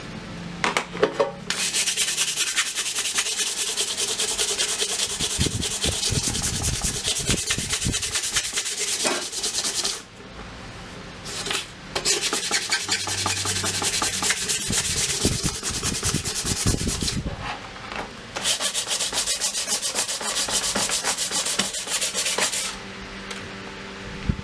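Sandpaper rubbed by hand in rapid strokes over the painted metal case, rasping away paint that stripper would not lift, in three long spells with short pauses about ten and seventeen seconds in.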